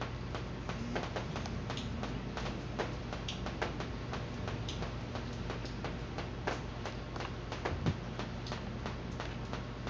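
Irregular light clicks and taps of hands handling and twisting wire connections inside a plastic electric fan housing, over a steady low hum.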